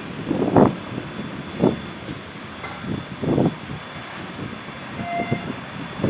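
Large coach bus going by, with several short low surges and a brief horn note about five seconds in.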